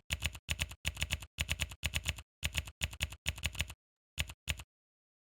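Typing on a computer keyboard: irregular quick runs of keystrokes, several a second, with dead silence between them, tailing off with two last taps a little after four seconds in.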